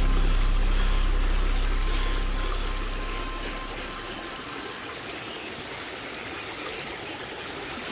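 Background music fading out over the first few seconds, leaving the steady rushing of a stream.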